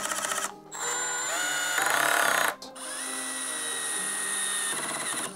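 Brushless 12-volt cordless drill drivers driving screws into stacked OSB, running in three stretches with short stops between. The middle run rises in pitch and is loudest just before it stops.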